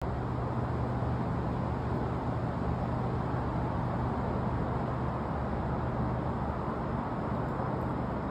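Steady low outdoor rumble with a faint constant hum underneath; no distinct knocks or calls stand out.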